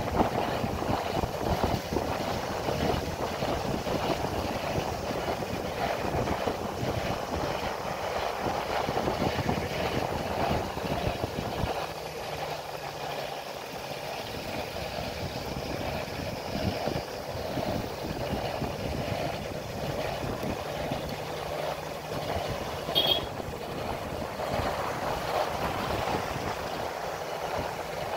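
Moving motorcycle's ride noise: wind buffeting the microphone over a steady drone of engine and tyres on the road, with one brief click near the end.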